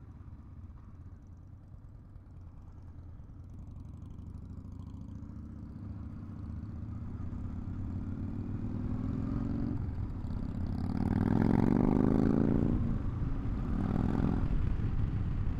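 Honda SCL500's parallel-twin engine pulling away and accelerating, its pitch climbing and dropping back twice as it shifts up about ten and thirteen seconds in, getting steadily louder as speed builds.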